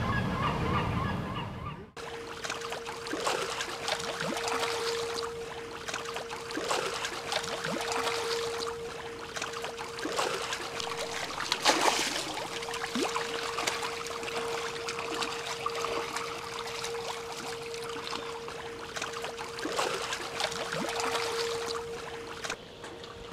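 Gulls calling now and then, each call short and often falling in pitch, over a steady even hum and a light wash of wind and water. In the first two seconds a pitched drone that cuts off abruptly.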